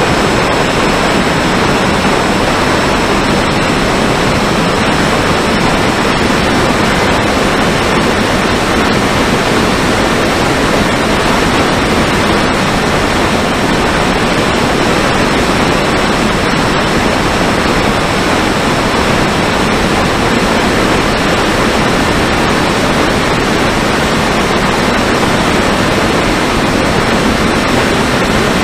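Steady, loud rush of airflow and electric motor and propeller noise from a Mini Talon FPV plane in flight, picked up by its onboard camera, with a faint steady high whine on top.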